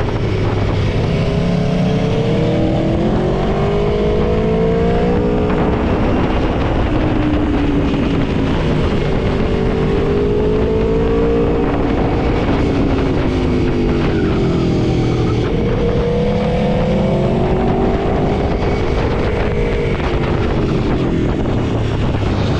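Aprilia Tuono V4 motorcycle's V4 engine running under way, its pitch rising and falling in long sweeps about every six seconds as the rider opens and rolls off the throttle.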